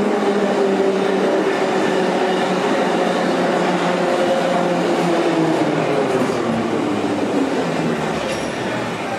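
Soviet-built Class 81 (Metrowagonmash) metro train pulling into the station and slowing to a stop: a whine that falls steadily in pitch as it decelerates, over the rumble of wheels on the rails.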